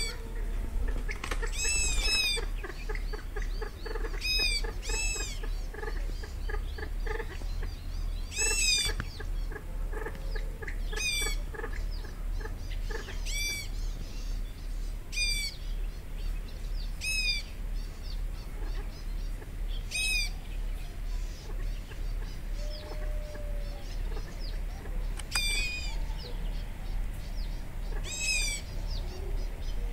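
A bird calling repeatedly in short arched notes, singly or in pairs, every second or two, over a steady low hum.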